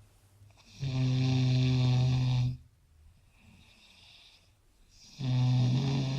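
A person snoring loudly: two long snores, each a steady buzzing tone lasting one and a half to two seconds, with a softer breath out between them.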